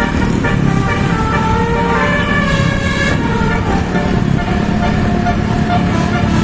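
Indonesian bus 'telolet' multi-tone horn playing a tune, its tones holding and stepping from note to note, over the low rumble of a vehicle engine.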